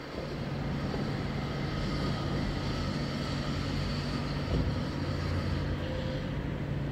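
A motor vehicle's engine running with a low, steady rumble that comes up right at the start, over a hiss of city background noise.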